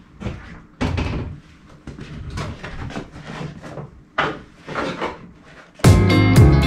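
Plastic front bumper cover knocking and scraping as it is pushed and fitted onto the front of a car, several irregular knocks, two of them sharper. Just before the end, loud guitar music with a steady beat comes in suddenly.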